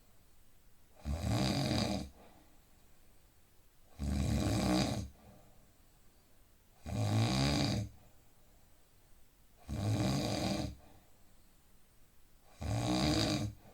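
A man snoring in deep sleep: five loud, rasping snores in a steady rhythm, each lasting about a second and coming roughly every three seconds, with quiet between them.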